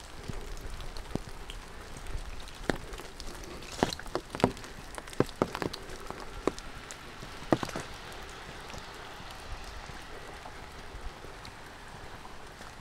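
Steady rain falling, with a cluster of sharp taps in the middle few seconds.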